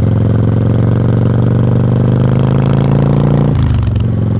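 Yamaha Virago V-twin motorcycle exhaust under way, its note rising steadily as the bike accelerates, then dropping sharply about three and a half seconds in and running on at a steady lower pitch.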